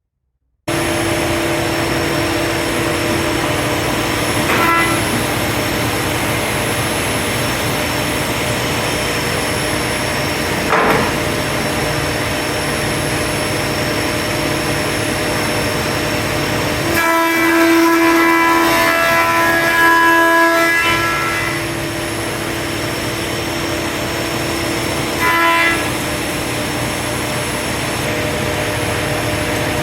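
Grizzly 20-inch helical-head planer and dust collection running: a loud, steady machine drone with a strong hum. It swells with extra tones for about four seconds past the middle, and briefly a few other times.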